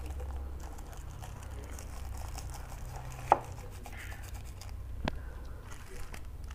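Small plastic seasoning sachets crinkling and tearing as they are opened over a cup of instant noodles, with two sharp clicks, the louder about a third of the way in and another about three quarters in. A steady low hum runs underneath.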